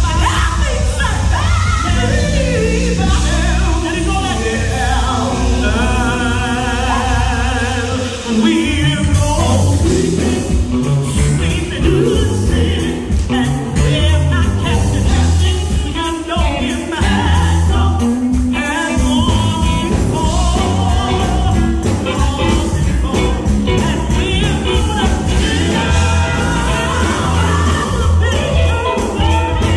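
Live gospel music: a women's vocal group singing with vibrato over a band of electric guitars and a strong low beat. About nine seconds in the rhythm turns busier, with sharp percussive strikes.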